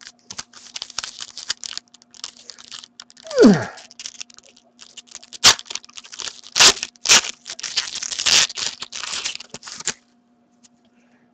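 A foil trading-card pack being torn open and its wrapper crinkled, with a few sharp crackles of the foil between about five and seven seconds in. A short falling voice sound comes about three and a half seconds in, and the rustling stops for the last second or so.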